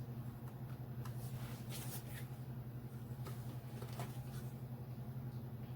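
Faint, scattered soft clicks and rustles of tarot cards being handled, over a steady low hum.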